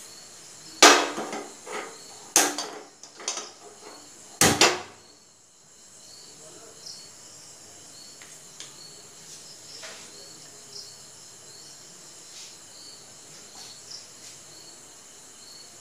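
Gas stove being lit: a handful of sharp clicks and knocks from the burner knob and igniter over the first few seconds, the last a double click about four and a half seconds in.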